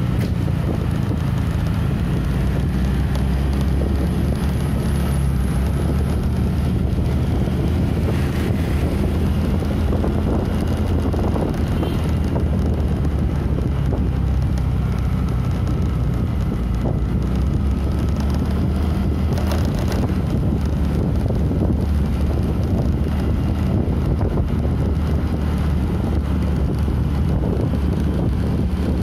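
Wind buffeting the microphone of a moving motorcycle, over a steady low rumble of engine and road. There is no pause.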